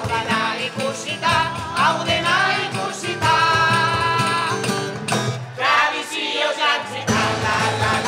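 A group of singers singing a song together, accompanied by acoustic guitar and cajón, with a tambourine.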